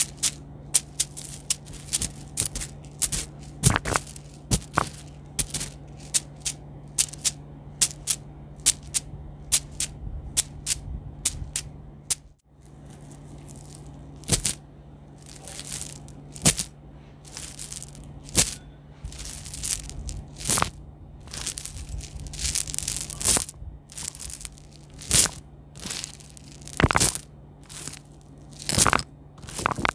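ASMR trigger sounds: a quick, irregular run of sharp clicks and taps, then after a break about twelve seconds in, slower crunching crackles, all over a steady low hum.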